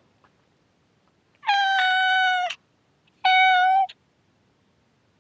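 A cat meowing twice: first a long, steady meow lasting about a second, then a shorter one.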